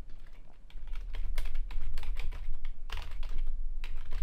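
Typing on a computer keyboard: a quick run of key clicks, several a second, as a search phrase is typed out, picking up after about half a second. A steady low hum sits under the clicks.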